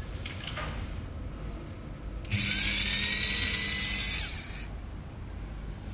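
Type 150 servo feed unit's electric motor and gearing running briefly: a loud whirring whine with a steady low hum underneath, cutting in abruptly a little over two seconds in and dying away about two seconds later.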